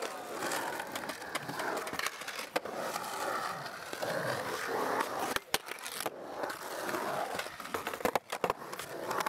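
Skateboard wheels rolling across a concrete bowl, the whir rising and falling in pitch as the board speeds up and slows through the transitions. A few sharp clacks break in, about 2.5, 5.5, 6 and 8 seconds in.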